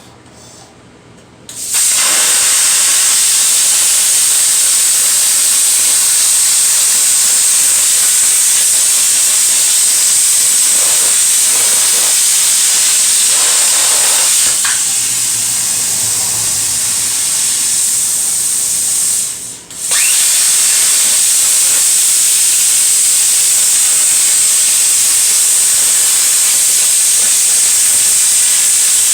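PrimeWeld Cut 60 plasma cutter cutting: a loud, steady hiss with a high-pitched whine. It starts about two seconds in, breaks off for a moment about two-thirds of the way through, then starts again.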